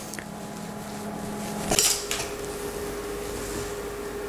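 Light metal clinks and clatter of a KitchenAid stand mixer's wire whisk attachment against its stainless steel bowl as they are handled, loudest about two seconds in.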